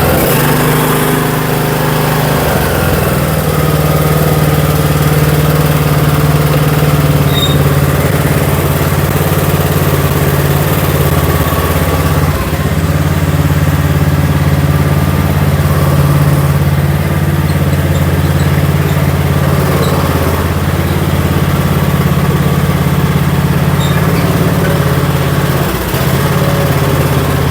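Murray riding lawn mower's engine running steadily.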